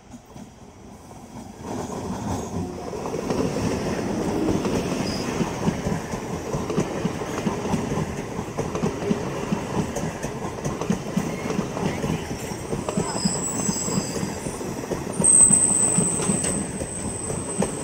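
MEMU electric passenger train passing close by. The rumble of the coaches swells in within the first two seconds, with a rapid clatter of wheels over rail joints. From about two-thirds of the way through, a high, thin squeal of the wheels rides over it, loudest shortly before the end.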